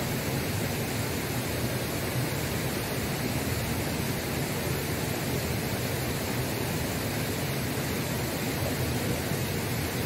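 Waterfall rushing steadily: an even, unbroken noise with no distinct events.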